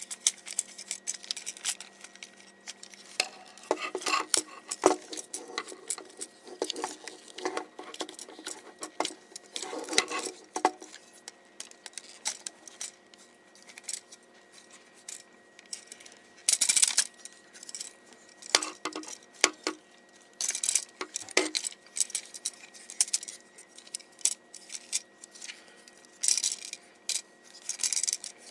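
Hard plastic parts of a Transformers Voyager Lugnut figure clicking and clacking as it is twisted, folded and snapped into place during transformation: irregular sharp clicks, bunched into busier clusters every few seconds.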